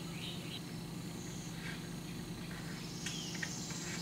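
Quiet workshop background: a low steady hum with insects and birds chirping, and a few faint light clicks as a bolt is hand-tightened from the underside of a wooden workbench frame.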